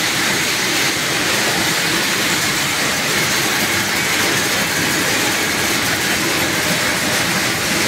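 Almond reception line running: a conveyor belt carrying in-shell almonds into a hull-stripping machine. Loud, steady noise of the machinery and the moving nuts.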